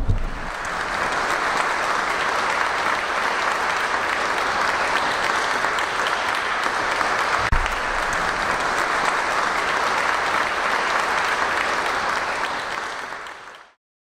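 Audience applauding, a steady clatter of clapping that fades out near the end, with one dull low thump about seven and a half seconds in.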